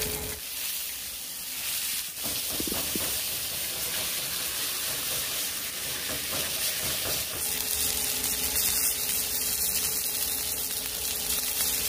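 Ribeye medallions searing in a hot cast iron skillet, a steady sizzle and hiss of meat and fat frying over high heat.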